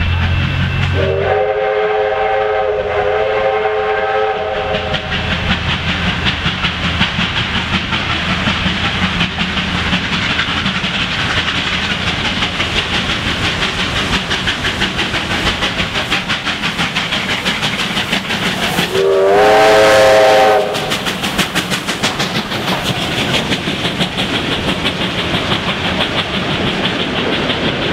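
Victorian Railways R class Hudson steam locomotives double-heading a passenger train past at speed, with steady exhaust and the clatter of wheels on rail. A steam whistle sounding several tones at once is held for a few seconds, then blown again more loudly and briefly.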